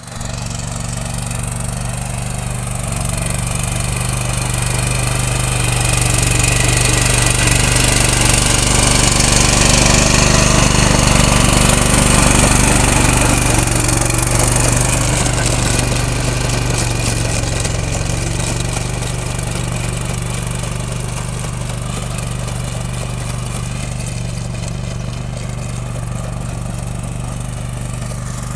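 Swaraj Code small ride-on tractor's diesel engine running steadily under load as it pulls a rear rotary tiller through the soil. It grows louder toward the middle and then slowly fades.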